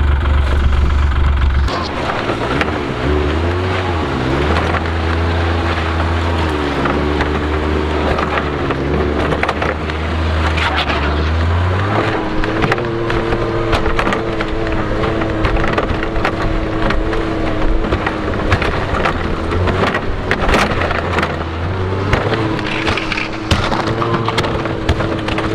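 Snowmobile engine running as it tows a wooden sled along a snowy trail, heard from the towed sled. The engine note rises and falls for about the first ten seconds, then holds steady. Throughout, the sled knocks and rattles over the trail.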